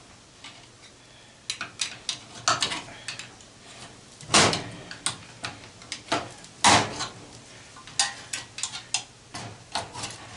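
Metal clinks and clanks of hand tools and loose parts while unscrewing an old fan motor from its metal mount: a run of small irregular clicks with two louder clanks, about four and a half and seven seconds in.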